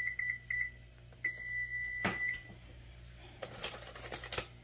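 Amana electric range's control panel beeping as the oven's set temperature is keyed down: a few quick short beeps, then one longer steady beep about a second in. A knock about two seconds in and a brief rustling noise near the end.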